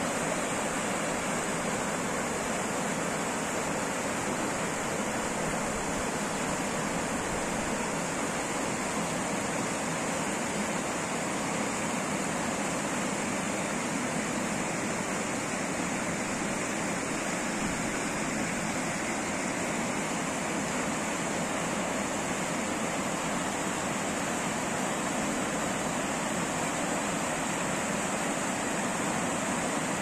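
River water pouring over a low weir and churning in white water below it: a steady, even rush that does not change.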